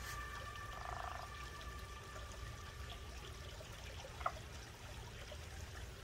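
Faint pond ambience at night: a frog croaks once about a second in, over a low steady rumble, while a few high steady tones fade away over the first two seconds. A single short click comes a little after four seconds.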